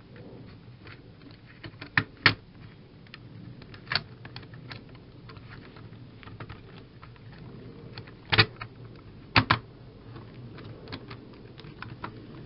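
Hard plastic clicking and tapping as a model railway coach's plastic body is pressed and snapped back onto its chassis by hand. Light scattered ticks, with a pair of sharp clicks about two seconds in, another near four seconds, and two more around eight and a half and nine and a half seconds.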